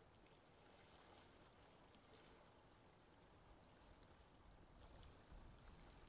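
Faint lake ambience: gentle water lapping with small scattered splashes, and a low wind rumble that swells slightly near the end.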